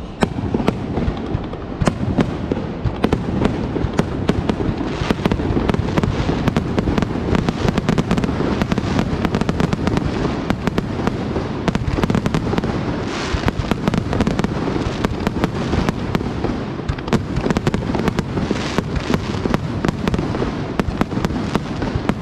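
Aerial fireworks shells bursting in rapid, overlapping succession: a dense barrage of booms and crackles with a continuous rumble underneath.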